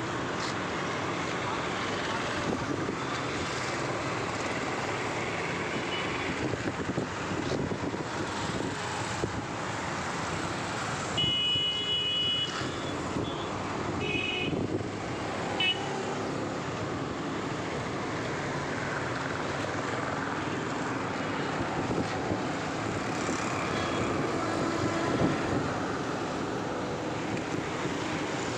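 Steady road traffic noise, with a vehicle horn sounding for about a second partway through, followed by two short toots a few seconds later.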